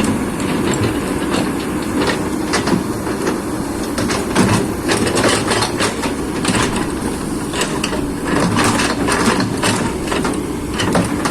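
Kobelco SK200 hydraulic excavator at work: a steady diesel engine rumble with many irregular metallic clanks and clicks from the machine.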